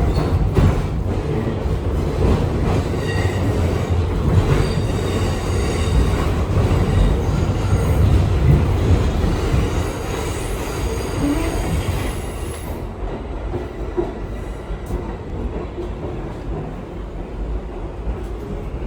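New York City Subway R62A train running on the rails: a heavy low rumble with high wheel-squeal tones over it. About two-thirds of the way in the squeal stops and the sound turns quieter and duller.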